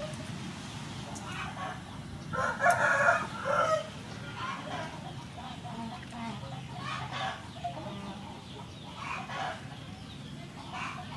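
A rooster crows once, loud and about a second and a half long, starting a couple of seconds in. Chickens cluck faintly now and then through the rest of it.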